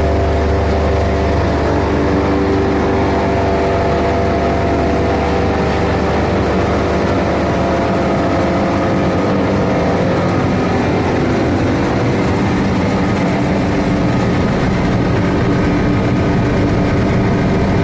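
Cable granulator machine running, crushing and separating waste cable: a steady loud mechanical drone with several humming tones over a noisy rush. Its deep low hum eases about ten seconds in.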